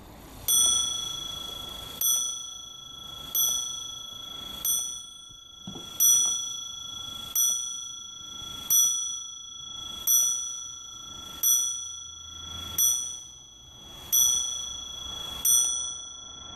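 Warmink Dutch clock movement's hammer striking its bowl-shaped bell twelve times, a stroke about every second and a third, each ringing out and dying away before the next.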